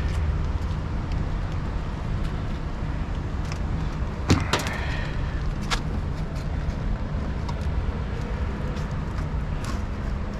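Steady low mechanical hum, with scattered light clicks, a sharp knock about four seconds in and another near six seconds.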